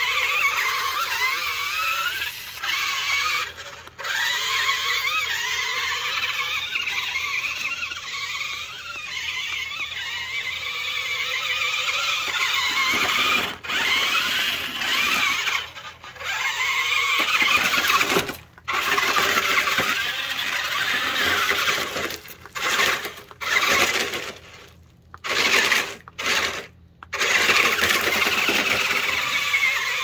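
Remote-control amphibious truck's small electric drive motors whining while it drives through snow. The pitch rises and falls with speed, and the sound cuts out briefly several times in the second half.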